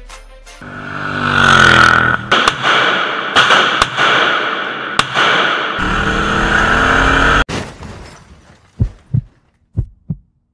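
A car engine revving up, its pitch rising, then running hard amid dense noise broken by several sharp cracks, until a deep rumble cuts off abruptly after about seven and a half seconds. Near the end come paired low thumps in a heartbeat rhythm, a heartbeat sound effect.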